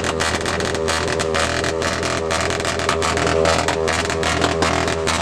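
Motorcycle with a loud modified exhaust being revved while standing still, its pitch rising and falling again and again.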